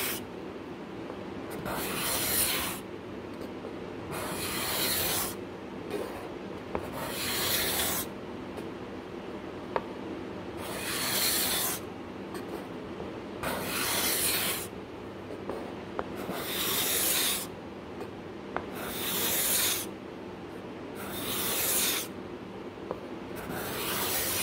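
A hand-held steel cabinet scraper is pushed along a hardwood board in repeated strokes, each a scratchy rasp about a second long, nine strokes in all. The freshly sharpened burr is taking full curled shavings.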